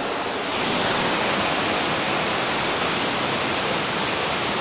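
Steady rush of river water pouring over a low timber dam in a wide, continuous cascade.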